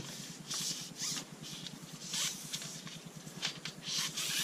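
Gloved hands handling a plastic tube and sliding it onto a metal rod: irregular scratchy rustling and rubbing in short bursts.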